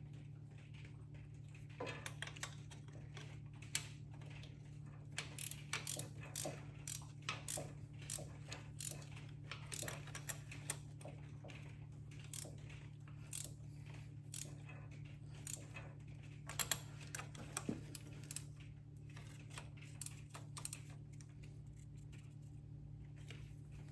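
Irregular light clicks and metallic clinks of hand tools and fittings being handled while fuel lines and linkage are fitted to a tractor's diesel injection pump, over a steady low hum.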